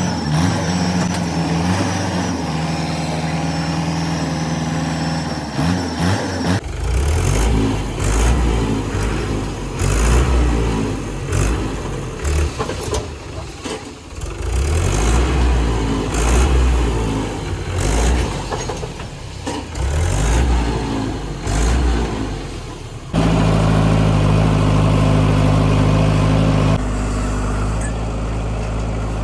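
Diesel engines of a JCB 3DX backhoe loader and farm tractors running as soil is loaded. A steady engine note for the first few seconds gives way to irregular low rumbling surges, then a loud steady engine note near the end, with abrupt changes between them.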